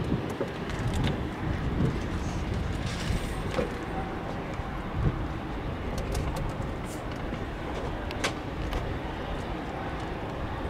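Boeing KC-46A Pegasus tanker's twin turbofan engines running at low taxi power, heard from a distance as a steady low rumble with a few faint clicks.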